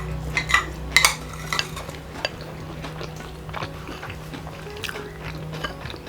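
Cutlery clinking and scraping against plates and serving dishes at a meal: a quick run of sharp clinks in the first couple of seconds, then scattered ones, over a steady low hum.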